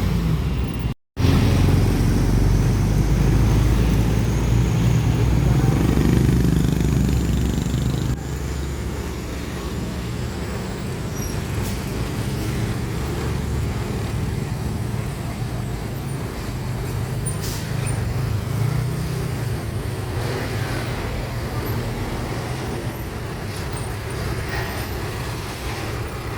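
Heavy diesel truck engines running and passing close by amid road traffic. The engine rumble is loudest in the first several seconds, after the sound cuts out for a split second about a second in, then settles to a steadier traffic rumble.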